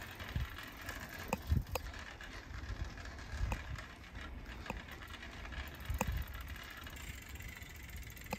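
Bicycle ridden along an asphalt road: a steady low rumble with scattered clicks and rattles from the bike.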